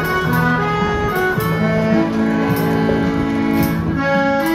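Instrumental music: a melody of held notes, each lasting about half a second to a second, over lower sustained notes.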